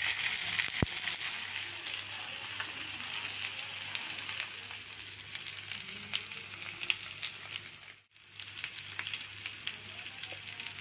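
Spice-marinated fish frying in oil on a flat tawa griddle: steady sizzling with many small popping crackles, loudest at first and then settling lower. It cuts out briefly about eight seconds in and resumes.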